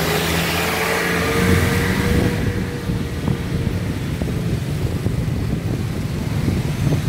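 Street traffic: a motor vehicle's engine running close by over a steady low rumble, with a hiss that dies away about two seconds in.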